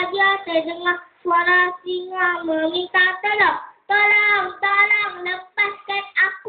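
A young boy singing into a microphone, in held notes with short breaks between phrases.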